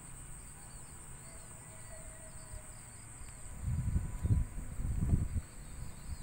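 Steady high-pitched insect buzz with a scatter of short high chirps. From about three and a half seconds in, irregular low rumbling noise on the microphone becomes the loudest sound.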